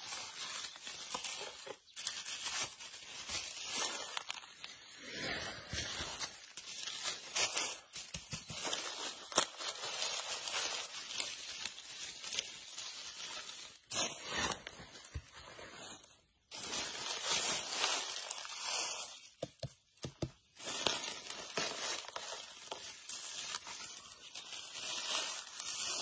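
Dry fallen leaves rustling and crackling as the leaf litter is disturbed by hand, in irregular bouts with several abrupt cuts.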